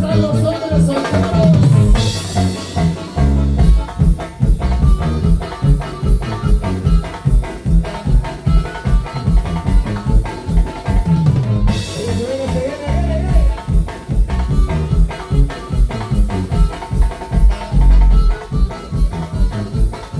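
Duranguense dance music with a fast, steady drum beat and heavy bass.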